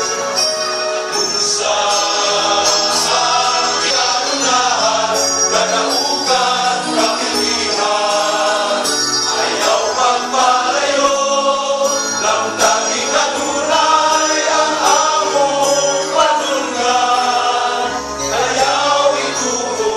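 Male choir singing a hymn in harmony.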